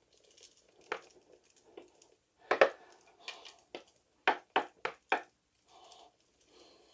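War World Scenics static grass applicator being shaken and tapped over the layout: irregular sharp taps, with a quick run of four about four to five seconds in, and a faint shaking noise between them.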